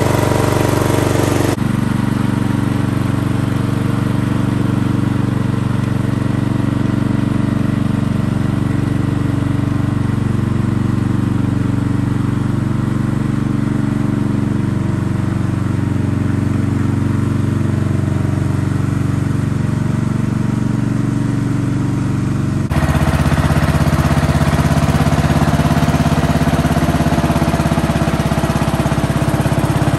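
Sears SS/14 vintage garden tractor's original 14-horsepower single-cylinder engine running steadily under load as it pulls a trailer stacked with firewood. The engine sound changes abruptly twice, about a second and a half in and again about three-quarters of the way through.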